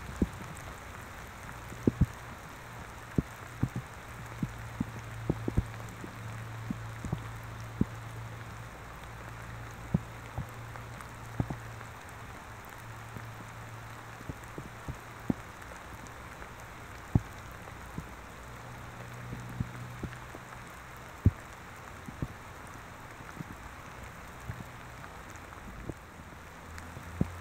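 Raindrops hitting an external microphone, heard as irregular sharp clicks over a steady hiss of rain. A low hum comes and goes beneath them.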